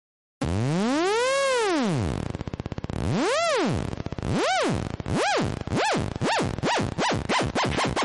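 Synthesized electronic ringtone: a tone starts about half a second in and swoops up and back down in pitch, each swoop shorter and quicker than the one before, speeding up into a rapid warble.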